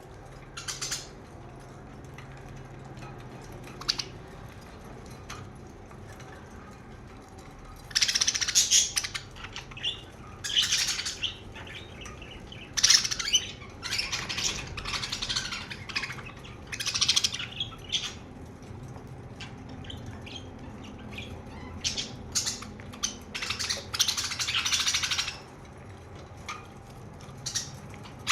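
Pet budgerigars chirping and chattering. The opening seconds are quiet apart from a couple of single chirps, then busy bursts of twittering chatter start about eight seconds in and keep coming in runs.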